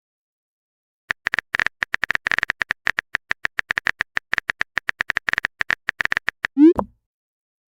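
Rapid phone-keyboard typing clicks starting about a second in and running for about five seconds, then a short rising 'bloop' of a message being sent.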